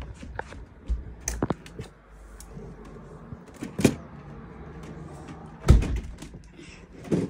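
Irregular knocks, bumps and rustling from a phone being carried and handled around a room; the loudest thump comes a little under six seconds in.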